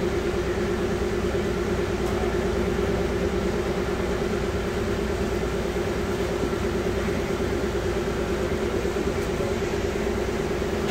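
Bombardier APM-100 rubber-tyred people-mover train running at a steady speed: an even running noise with one constant droning tone from the drive.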